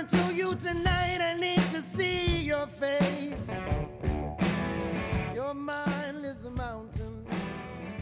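Background song with guitar and a singing voice, with a steady beat.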